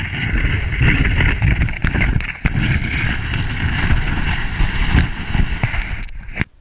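Sled sliding fast down a snowy slope: a loud, rough scraping rumble of the sled on the snow, with wind buffeting the microphone and a few knocks. It cuts off suddenly near the end.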